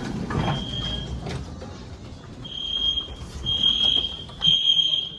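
Building fire alarm sounding, a high-pitched electronic tone in long beeps. After a pause, three beeps come in a row in the second half.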